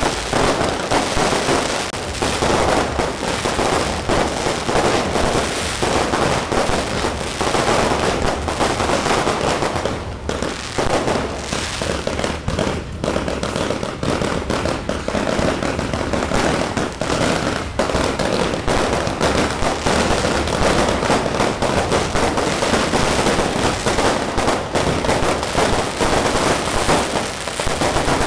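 Fireworks going off in a dense, continuous crackle of rapid bangs, easing briefly about ten seconds in before packing together again.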